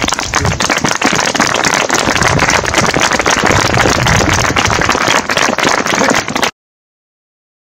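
A group of people applauding outdoors, a dense patter of many hands clapping, cut off suddenly about six and a half seconds in, followed by silence.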